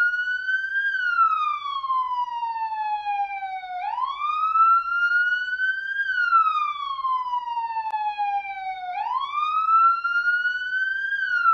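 Police siren sounding a wail: a single tone sweeps up quickly, then glides slowly back down, repeating about every five seconds.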